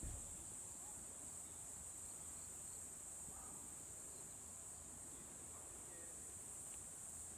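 Faint, steady chorus of crickets, a continuous high-pitched chirring.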